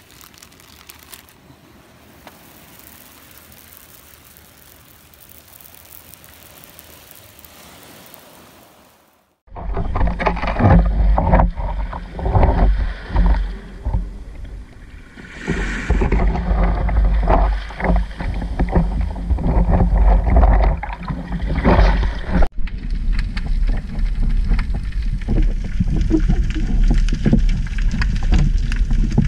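After a quiet stretch of faint background hiss, a sudden cut brings loud sea waves washing over a rocky, pebbly shore, with wind buffeting the microphone in uneven surges. Near the end this gives way to a steadier low rush.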